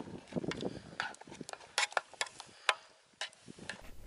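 Spoon stirring food in a metal mess tin, an irregular run of sharp clicks and scrapes against the tin that stops after about three and a half seconds.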